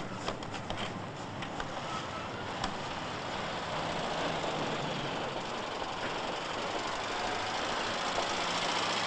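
Steady traffic noise, a continuous rush of passing vehicles, with a few light clicks in the first few seconds.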